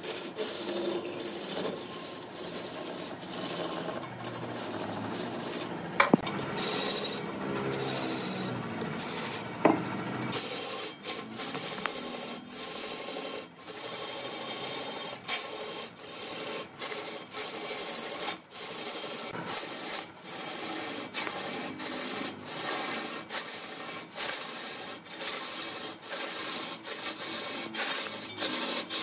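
A woodworking tool scraping on wood in short repeated strokes, about two a second for most of the stretch, with two sharp knocks in the first half.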